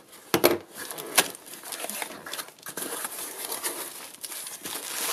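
A parcel box being cut and torn open by hand: two sharp snaps about half a second and just over a second in, then steady crinkling and rustling of the packaging.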